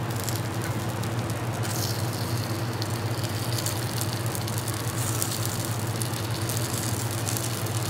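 Cheese frying in a hot pan to make a crisp, sizzling with fine crackles that grow denser about two seconds in, over a steady low machine hum.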